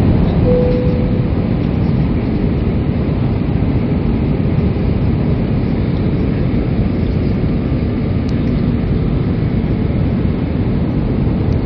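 Steady cabin noise of an airliner descending on approach, a low, even rumble of engines and rushing air heard from a window seat. A brief steady tone sounds about half a second in.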